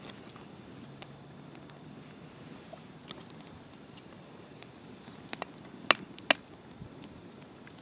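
An eggshell being cracked with two sharp taps about six seconds in, with a few fainter clicks before them, over a faint steady high-pitched hum.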